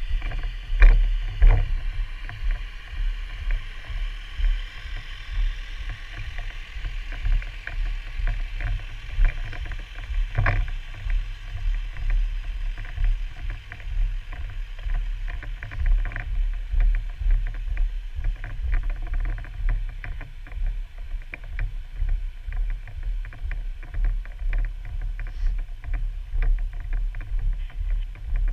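A firefighter's footsteps and gear knocking on a walk over snow, heard through a helmet camera, over a steady low rumble of wind and movement on the microphone.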